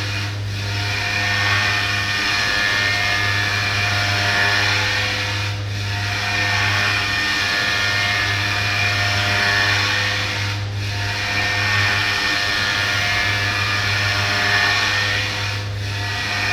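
CNC orthopedic milling machine's spindle cutting a prosthetic model: a steady drill-like whine over a low hum, dipping briefly about every five seconds.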